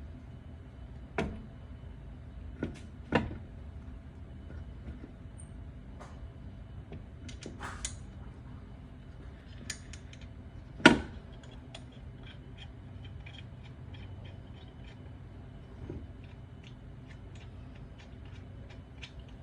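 Lug nuts being hand-threaded onto wheel studs: scattered metallic clicks and knocks, the loudest about 11 seconds in, then a quick run of light ticks.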